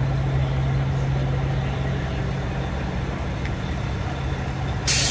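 Diesel truck engine idling steadily with a low hum, then a short, loud air-brake hiss near the end.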